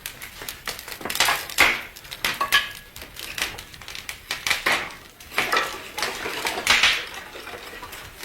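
Wood fire in a fireplace crackling: irregular clusters of sharp crackles and snaps with short quieter gaps between them.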